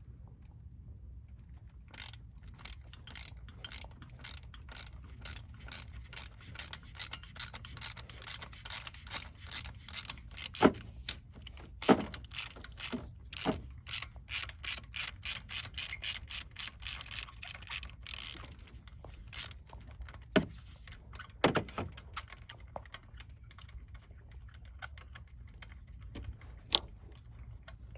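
Ratchet wrench on a 5/8-inch spark plug socket clicking in quick runs as it backs a spark plug out of the cylinder head. A few louder knocks come through the middle, and the clicking thins out near the end.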